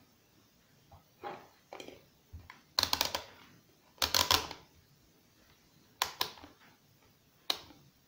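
Rotary range-selector dial of a DT9205A digital multimeter being turned, clicking through its detent positions in several short runs of rapid clicks, the loudest about three and four seconds in.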